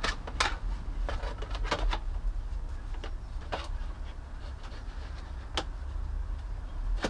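Plastic infill panel on a Yamaha R6 motorcycle being fitted back into place: irregular clicks and taps of plastic against plastic.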